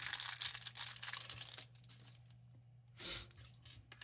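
Thin clear plastic bag crinkling and tearing as it is pulled open by hand, dense for about the first second and a half, then a single short rustle about three seconds in.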